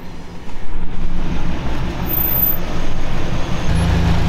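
Vehicle engine running at idle. A louder, deeper engine note comes in near the end.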